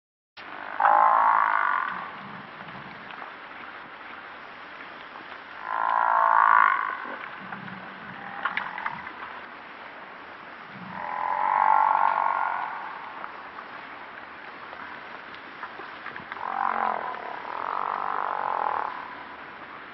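African (Cape) buffalo calling: four drawn-out calls, each one to two seconds long, about five seconds apart.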